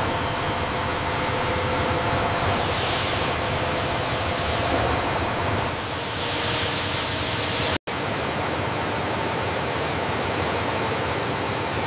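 Steady industrial noise of a large assembly hall: an even hiss and rumble with faint steady hums. It breaks off for an instant about eight seconds in, then carries on unchanged.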